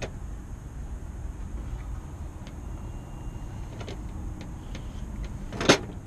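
Faint metal clicks and taps from a mortise lock body's internal parts being worked with a screwdriver, then one sharp metallic clack near the end, over a steady low rumble.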